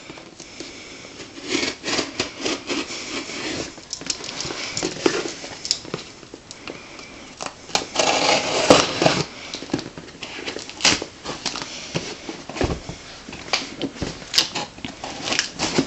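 Pocket knife slitting packing tape along the seams of a cardboard shipping box: irregular scraping, crackling tape and small knocks of the box being handled. The loudest stretch comes about eight to nine seconds in.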